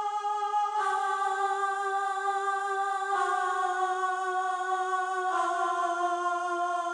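Background music: a sustained, held chord with no beat, moving to a new chord three times.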